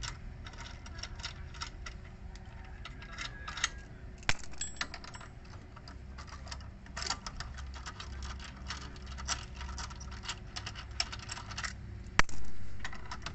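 Already-loosened lug nuts being spun off a car wheel with an L-shaped steel wheel wrench: a run of light metallic clicks and rattles from the nut turning in the socket. There is a sharp metal clank about four seconds in, and near the end a louder metal clank that rings for about a second.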